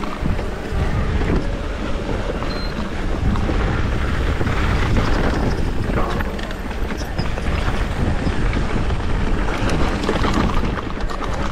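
Wind rushing over the microphone of a rider's camera on an electric mountain bike riding a rough dirt and rock trail, with scattered knocks and rattles from the bike over the bumps.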